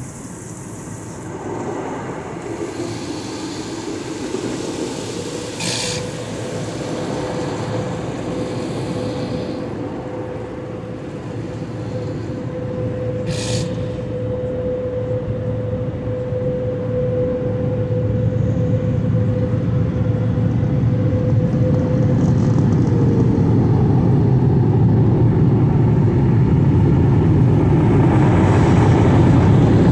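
Automatic tunnel car wash heard from inside the car: a steady rumble of water and machinery on the body, with a steady whine from the wash equipment through most of the middle and two short hissing spurts of spray. The rumble grows louder toward the end as the car reaches the exit.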